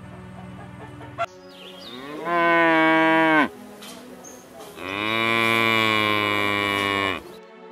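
Cow mooing twice: a call of over a second, then a longer one of about two and a half seconds, each rising in pitch at the start and dropping away at the end.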